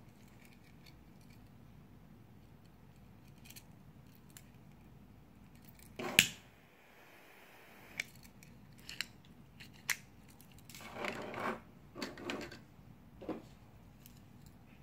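Metal knife-shaped gas lighters handled on a table: a sharp metal click about six seconds in, the loudest sound, then a few smaller clicks and taps and a stretch of scraping and rattling near the end.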